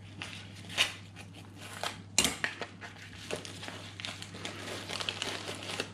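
Plastic postal satchel crinkling and crackling as it is handled and opened, with two sharper crackles about a second and about two seconds in.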